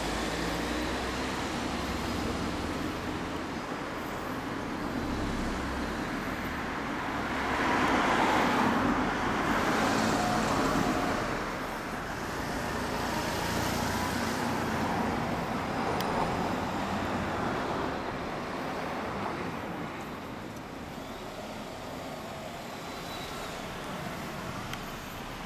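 Exhaust note of a 2013 Honda CBR400R's parallel-twin engine through an Arrow slip-on muffler, running on the stand. It gets louder for a few seconds about eight seconds in and again around thirteen seconds in, then settles lower near the end.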